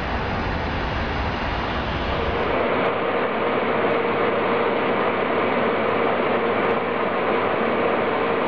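Steady rushing noise of an aircraft in flight, heard from inside the cockpit. About two and a half seconds in the deep rumble drops away, leaving the rushing noise with a steady mid-pitched hum.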